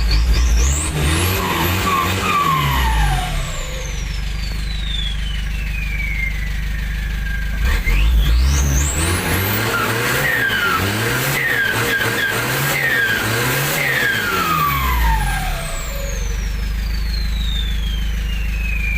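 Nissan TD27 four-cylinder diesel with a Z18 turbocharger revved in short blips. After each rev the turbo whistle shoots up to a very high pitch and then winds slowly down. There is one burst of revs near the start and a run of about five quick blips in the middle, with shorter falling whistles after each.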